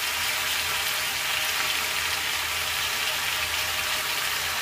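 Onions, small eggplants and potato pieces sizzling steadily in hot oil in a frying pan.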